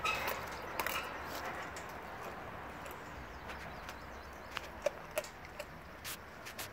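A Blue Bay Shepherd gnawing a frozen raw tilapia: irregular sharp crunches and cracks of teeth on frozen fish and bone, spread a second or so apart.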